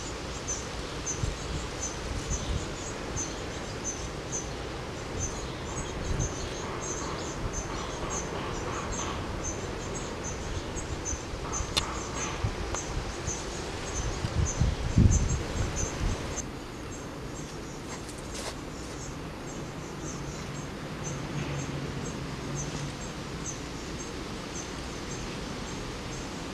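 Outdoor garden ambience: a high, thin chirp repeating evenly about two or three times a second, over low rumbling wind noise on the microphone that is strongest about fifteen seconds in and eases a little after.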